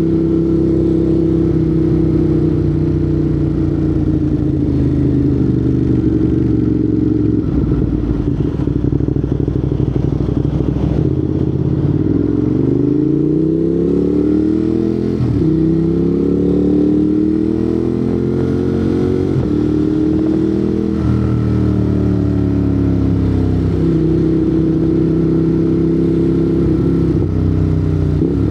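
Ducati Monster 821's L-twin engine through a Termignoni exhaust, running steadily and then, about halfway through, pulling hard so the pitch climbs. The climb breaks off suddenly and starts again, twice, at quick-shifter upshifts.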